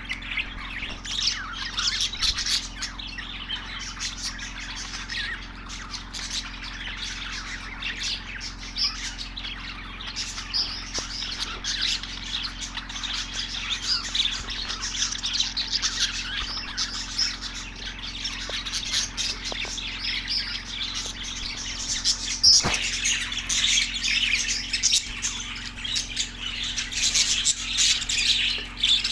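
A flock of budgerigars chirping and chattering with squawks, their calls overlapping continuously. A single sharp click comes about three quarters of the way through.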